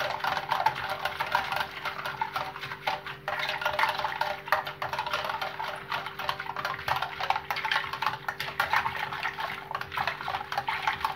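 A whisk stirring and scraping around a stainless-steel saucepan, a rapid, continuous clatter against the metal through a thin liquid of sugar and cocoa being whisked until dissolved for a chocolate sauce. A steady faint hum runs underneath.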